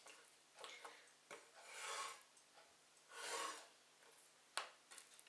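Quiet knife work on a wooden chopping board: a cleaver cutting squid, with two soft scraping strokes and a couple of light taps of the blade on the wood near the end.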